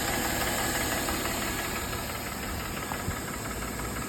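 Mercedes M272 3.5-litre V6 idling warm with a rapid, steady rattling knock from the left bank. The rattle comes from piston slap in a badly scored (scuffed) cylinder six, which an endoscope later showed.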